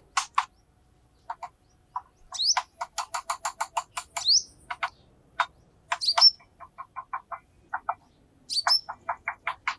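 Wild birds calling: quick runs of sharp clicking notes, about five or six a second, broken by a few short rising chirps.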